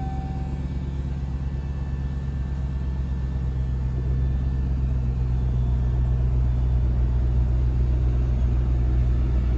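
Ram 1500 TRX's supercharged 6.2-litre V8 idling, heard from inside the cab as a steady low rumble that grows slightly louder.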